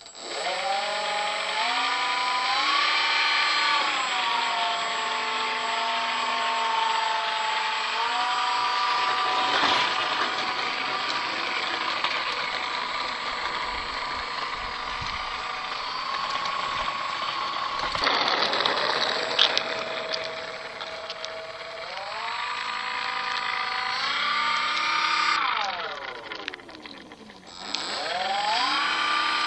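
Radio-controlled Cessna model aeroplane's motor running as it taxis, its pitch climbing and falling with the throttle. It spools up at the start, holds fairly steady, eases down and back up several times, then drops sharply and climbs again near the end.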